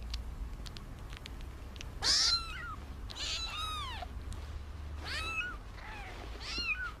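Newborn kittens mewing while nursing: a series of high, thin mews, each rising then falling in pitch, starting about two seconds in.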